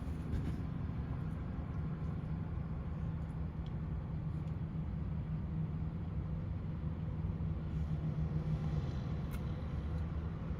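Car engine idling, a steady low hum with no change in pitch.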